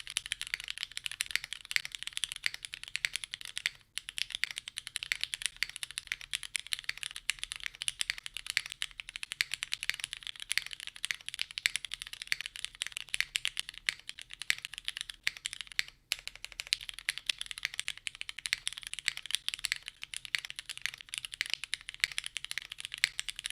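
Fast, continuous typing on a plateless custom mechanical keyboard with lubed Cherry MX Black Ultraglide linear switches and GMK keycaps. The rapid key strokes break off briefly twice, about 4 and 16 seconds in.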